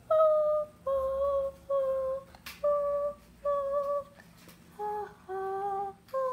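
A high voice humming a slow, wordless tune: about seven held notes, each about half a second long with short breaks between them, dropping lower near the end.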